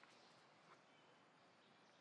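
Near silence: faint outdoor background hiss with a couple of soft ticks.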